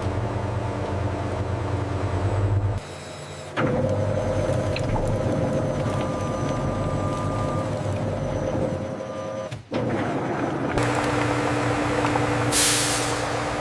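Food-processing machinery running with a steady hum. The hum changes abruptly several times, with a brief drop about 3 s in and again near 10 s, as one machine sound gives way to another.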